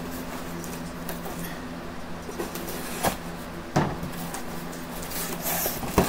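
A small cardboard shipping box being cut and opened by hand, with cardboard scraping and rustling and two sharp clicks about three and four seconds in, over a steady low hum.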